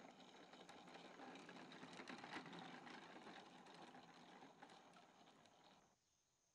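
Faint rumbling rattle of a plastic Big Wheel tricycle's wheels rolling over pavement, with scattered clicks; it cuts off suddenly near the end.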